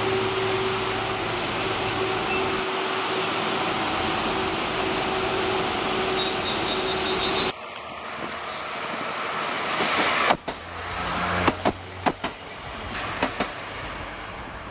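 A train running steadily with a held tone. It cuts off about halfway through, and a train then approaches and passes, its wheels clacking over rail joints in a handful of paired clicks.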